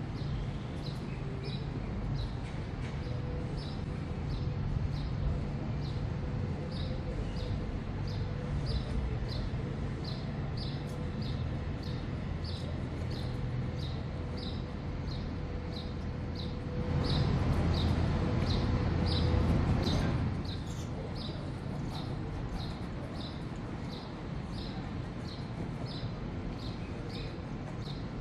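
City waterfront ambience: a steady low hum of the city, with a short high chirp repeated about twice a second. A louder low rumble swells for about three seconds past the middle, then falls back.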